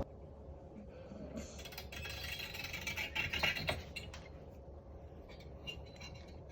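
Sleeping Border collie snoring: a faint, noisy snoring breath swells about a second and a half in and fades away after about four seconds.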